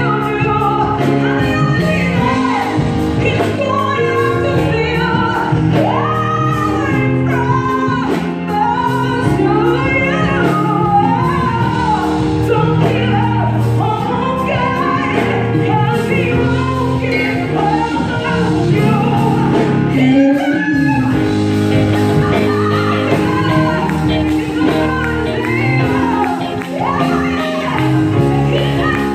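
A woman singing a gospel song solo into a microphone, her melody gliding and ornamented over steady sustained instrumental accompaniment.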